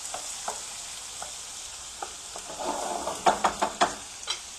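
A pan of bacon, onion, pepper, garlic and tomato sizzling with a steady hiss. A quick run of clinks and scrapes about three seconds in as the food is stirred against the pan.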